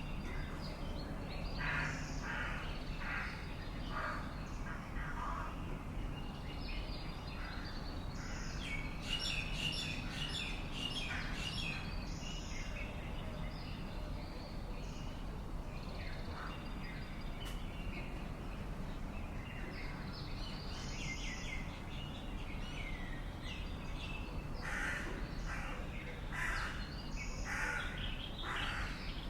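Birds calling outdoors: runs of repeated call notes about two seconds in and again near the end, with higher chirping in between, over a steady low background rumble.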